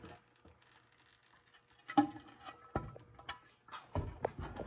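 Scattered light clicks and knocks after about two seconds of near silence, with a louder low rumble coming in near the end.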